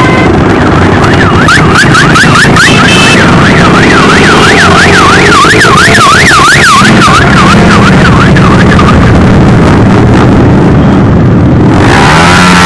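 Many motorcycle engines running together as a caravan of bikes rides past, very loud. From about a second in until near the nine-second mark a siren warbles rapidly up and down over the engines.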